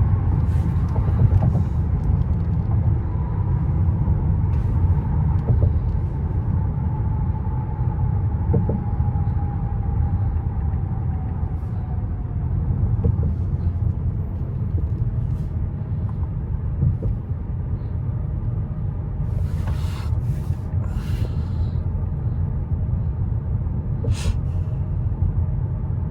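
Steady low road and engine rumble of a 2024 Mercedes-Benz S580 on the move, heard inside the cabin, with a faint whine that slowly falls in pitch over the first ten seconds or so. A few short hissing sounds come later.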